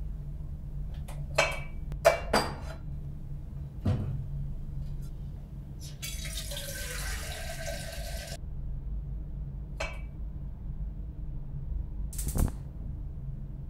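Kitchen handling sounds: a few knocks and clinks at the cupboard, then a kitchen tap running for about two seconds, and near the end a short burst as a gas stove burner is lit. A steady low hum lies under it all.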